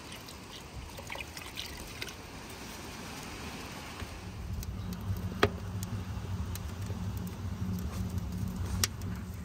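Liquid trickling from a ladle into a pot of water, then a wood fire burning in a stove's firebox: a steady low rumble from about four seconds in, with two sharp crackles from the burning logs.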